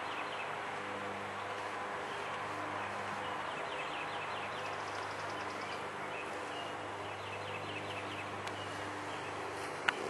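Spring woodland ambience: a steady hiss with a faint low hum, and faint bird calls in short rapid series of chirps that come and go a few times.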